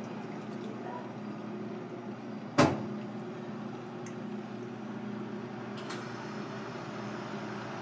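A steady low hum with one sharp knock about two and a half seconds in.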